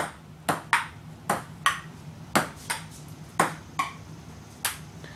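Table tennis rally: a ping-pong ball clicking off the table and the paddles, about ten sharp hits that come roughly in pairs, a bounce and a strike, about once a second. The hits stop near the end as the point finishes.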